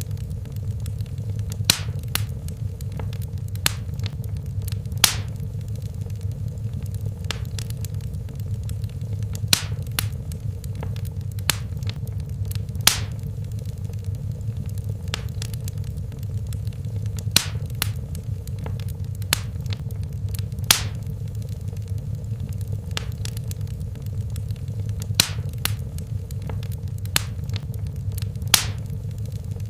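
Wood fire crackling in a fireplace: sharp, irregularly spaced pops and snaps over a steady low rumble of the burning fire.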